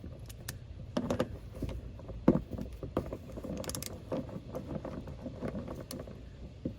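Scattered light clicks and knocks of hand tools and car parts being handled, over a low steady rumble.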